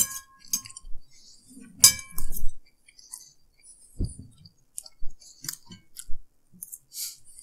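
Metal forks clinking and scraping on ceramic dinner plates while people eat noodles. There are two clear ringing clinks, one at the start and another about two seconds in, then a dull thump about four seconds in, with scattered lighter taps and soft chewing between them.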